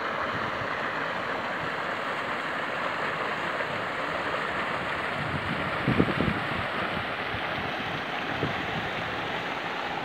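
River water running steadily over its bed, a constant rushing noise. A few brief low wind buffets hit the microphone around the middle.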